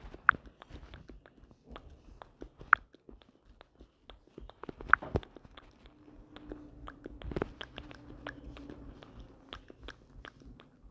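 Irregular light clicks and taps, with three sharper clicks spaced about two and a half seconds apart and a faint hum in the middle.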